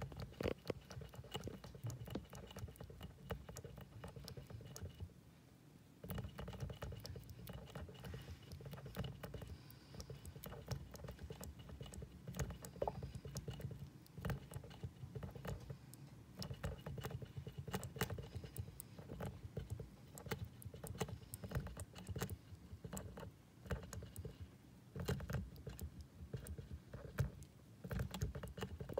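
A hamster drinking from the metal sipper spout of a cage water bottle: a loud, rapid run of small clicking and tapping licks on the spout. There is a short pause about five seconds in.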